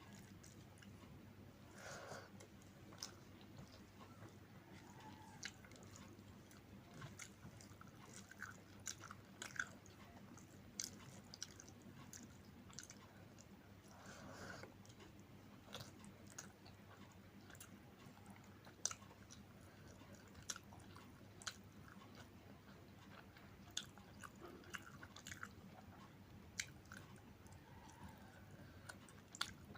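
Quiet, close-up sounds of a person chewing and eating: irregular small wet clicks and crunches of mouthfuls being chewed, over a faint steady hum.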